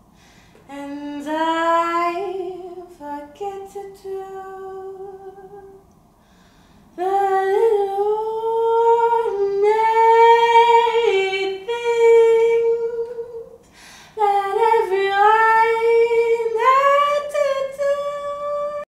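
A young woman's solo singing voice holding long, sliding notes in four phrases with short breaths between them. It cuts off suddenly at the end.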